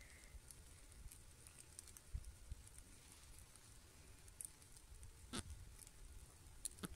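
Near silence, broken by faint scattered ticks and a few soft taps, the clearest about five and a half seconds in.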